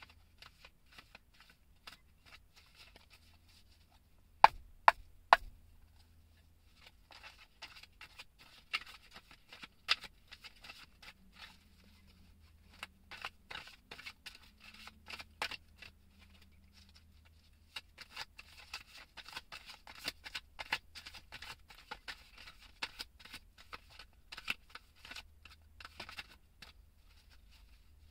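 A deck of tarot cards being shuffled by hand: stretches of quick clicking and rustling as the cards slide and slap together, with three sharp knocks about five seconds in.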